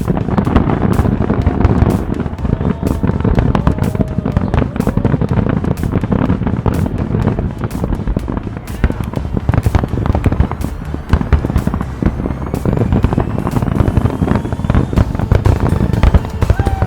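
Aerial fireworks going off in a dense, rapid barrage of overlapping bangs and crackles, with a rising whistle in the second half.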